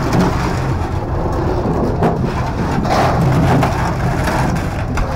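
Busy market din: a vehicle engine running close by, with scattered knocks and clatter.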